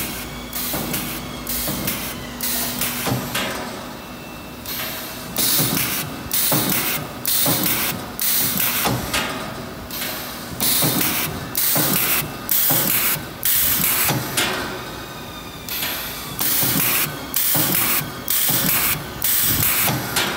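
Spiral wire fan guard making machine spot-welding the wire spiral to the guard's spokes, each pneumatic weld stroke giving a short burst of air hiss. The strokes come about every 0.6 s in runs of five or six, with short pauses between runs.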